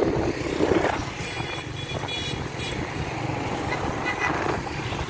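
Road traffic heard from a moving vehicle on a city street: a steady low rumble of engines and tyres, with other cars and motorbikes passing close by.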